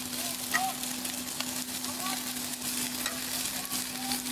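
Sliced peppers and onions sizzling in hot oil in a cast iron skillet, just added to the pan, with a metal fork stirring them and clicking against the iron now and then.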